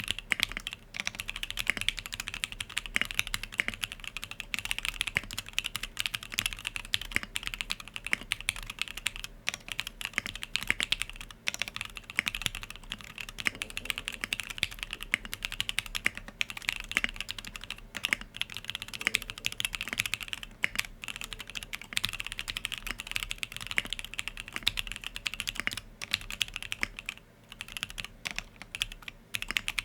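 Continuous fast typing on the Sangeo65 custom mechanical keyboard: lubed SP-Star Yanyu linear switches bottoming out on an aluminum plate with plate foam, in a dense stream of key clacks with a few brief pauses.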